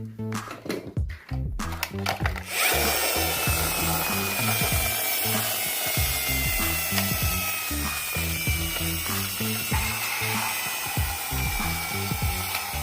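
A small toy-vehicle motor whirring, starting about two and a half seconds in, with a slowly falling whine, over background music with a steady beat.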